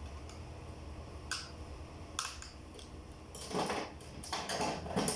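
Two sharp clicks, then two bouts of scraping and crunching handling noise, over a steady low hum.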